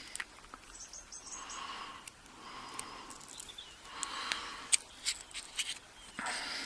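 Serrated spool pins being loaded into the pin chambers of a padlock's lock core: faint scratching and rustling with a few light, sharp clicks, most of them clustered about three to six seconds in.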